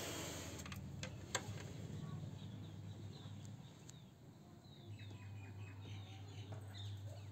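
Faint birds chirping outside, over a low steady hum, with two sharp clicks in the first second and a half.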